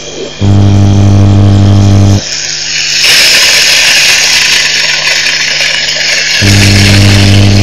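A loud, steady low hum starts and stops abruptly, twice, with a hissing rush in between.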